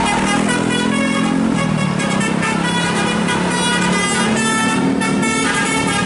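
Bus telolet basuri horn playing a melody of quickly changing notes, over the bus engine.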